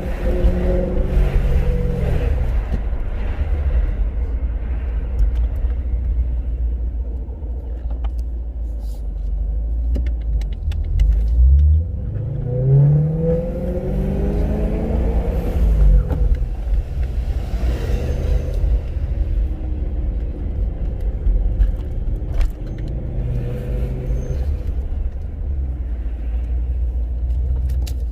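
Supercharged BMW E92 M3's V8 engine running with a heavy low rumble. About eleven seconds in, its pitch climbs and then falls back over a few seconds, and it rises and falls more gently again later.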